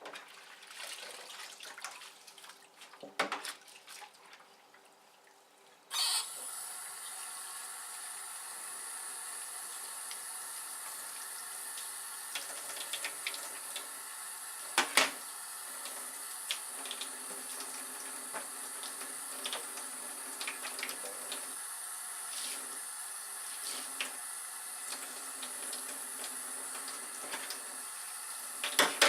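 A tap is turned on about six seconds in, and water runs steadily into a sink, with a few sharp knocks of things being handled under it.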